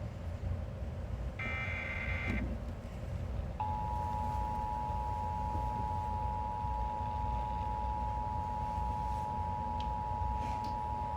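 Emergency Alert System broadcast: a short buzzy SAME header data burst of high warbling tones, then about three and a half seconds in the EAS two-tone attention signal (853 and 960 Hz together) starts and holds steady, over a low radio hum.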